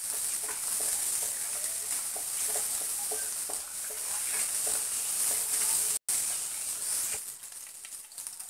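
Hot oil sizzling in a nonstick kadai as cumin seeds, a bay leaf and green chillies fry for a tadka (tempering), while a wooden spatula stirs and scrapes the pan. The sizzle cuts out for an instant about six seconds in, then goes on more quietly once the stirring stops.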